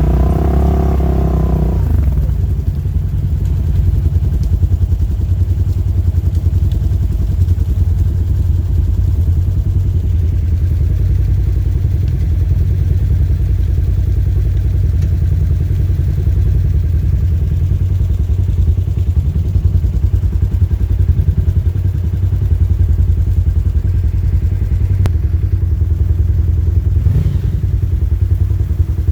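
Polaris RZR side-by-side engine running under way. Its note drops off over the first couple of seconds, then holds at a steady low drone.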